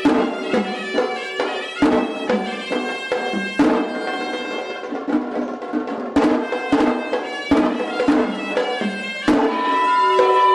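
Sri Lankan hevisi temple music: a horanewa shawm plays a reedy, wavering melody over frequent sharp strokes of the davul and tammattama drums. Near the end the shawm holds one long steady note.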